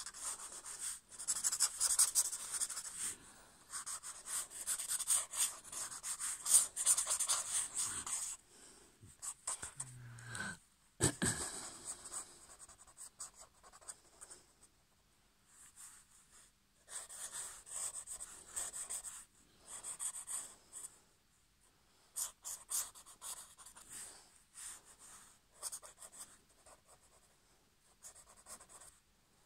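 Black pen scribbling and hatching quickly on paper: scratchy strokes, nearly continuous for the first eight seconds, then in short spurts with pauses. A brief knock about eleven seconds in.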